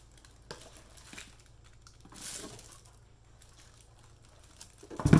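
Handling noise from a small plastic-wrapped waffle maker being turned over: light rustles and clicks, a brief crinkle of plastic wrap about two seconds in, and a loud thump near the end as the unit is set down on the countertop.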